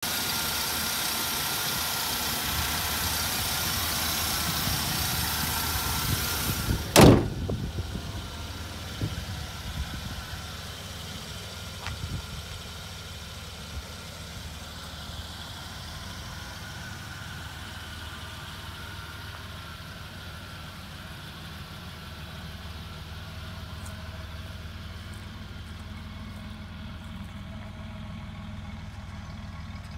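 Oldsmobile Cutlass Supreme's 3.8-litre V6 idling, loud and close with the hood open. About seven seconds in the hood slams shut with one sharp bang. After that the idle goes on quieter and steady, with a few light knocks.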